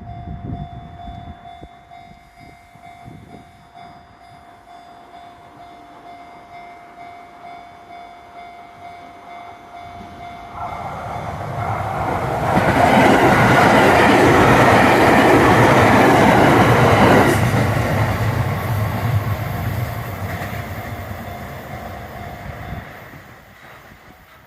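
A Japanese railway level crossing's warning bell rings steadily while a train approaches and passes. The train's noise swells about ten seconds in, is loudest for about five seconds, then fades away, and the bell stops near the end.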